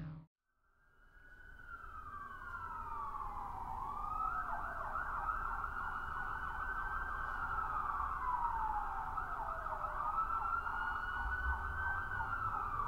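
Emergency vehicle siren in a slow wail: it holds a high pitch, slides down, then swings back up, repeating every five or six seconds. It fades in from silence about a second in.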